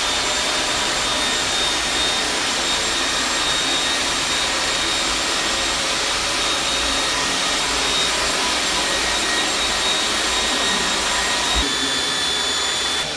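Bulldog Micro crossover floor scrubber running: its vacuum motor and scrub brushes make a steady, loud hiss with a thin high whine over it. The sound shifts slightly near the end.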